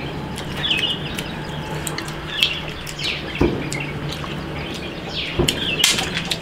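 Small birds chirping: short downward-sweeping chirps repeated every second or so, with scattered sharp clicks and a low steady hum beneath.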